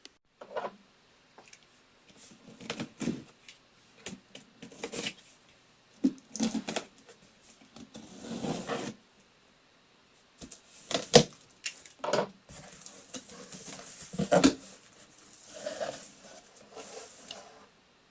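Hands handling small hard plastic 3D-printed parts and the printer's build plate: irregular clicks, taps and knocks mixed with stretches of scraping and rustling, the longest in the second half.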